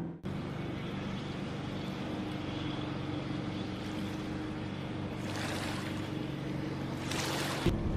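Amphibious armoured vehicle swimming, its engine a steady drone under the rush of water from its bow wake. There are louder surges of splashing spray twice in the second half.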